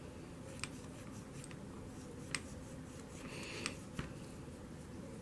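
Faint scrubbing and handling noise, with four sharp light clicks, from cleaning an old Lionel locomotive's wheels and running gear by hand with cotton swabs.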